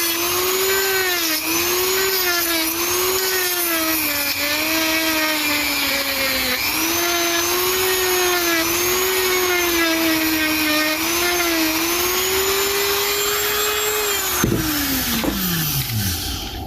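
Electric sander running on oak bow ties, its motor pitch dipping and recovering as it is pressed into the wood. About two seconds before the end it is switched off and winds down in a falling whine.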